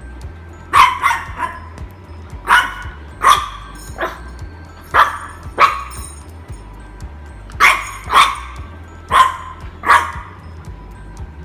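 A French bulldog puppy barking: about eleven short, sharp, high barks, several coming in quick pairs, with pauses of a second or two between bouts.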